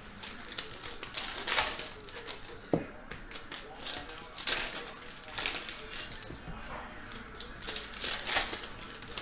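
Foil trading-card pack wrappers crinkling and cards rustling as packs are torn open and the cards handled, in short crackly bursts about once a second, with a sharp click about three seconds in.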